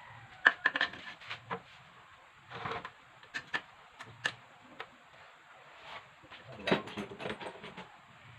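Metal hand tools and engine parts clinking and knocking against each other in a string of sharp, irregular clicks, thickest about half a second in and again near seven seconds, with a brief scrape in between.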